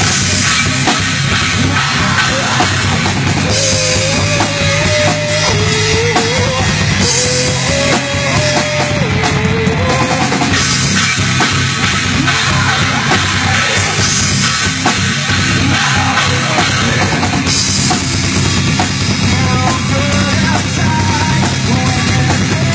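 Live rock band playing a song: a drum kit with bass drum and cymbals, with guitars and bass. A melody line rises and falls above the band for several seconds in the first half.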